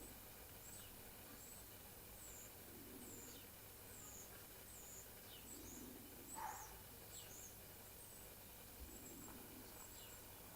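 Faint high bird chirps, short and falling in pitch, repeating roughly every half second to second over quiet room hiss, with one louder call about six and a half seconds in.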